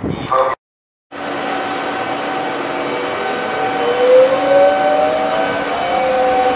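Trenitalia ETR104 'Pop' electric multiple unit moving slowly along a station platform. Its traction equipment whines under a steady running noise, with one whine rising in pitch as the train picks up speed. The sound cuts out for about half a second near the start, then begins again.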